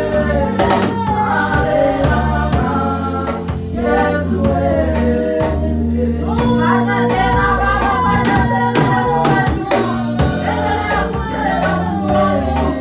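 Gospel worship song: several voices singing together over a band, with sustained bass notes and a steady drum beat.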